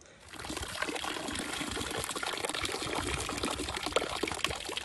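Shallow stream water flowing and trickling steadily, a dense rushing with many small splashy ticks, starting abruptly just after the opening.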